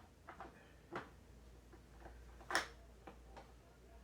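Light clicks and taps of a small Phillips screwdriver tip slipping and catching on a screw in a pancake air compressor's housing: a few scattered ticks, the sharpest about two and a half seconds in.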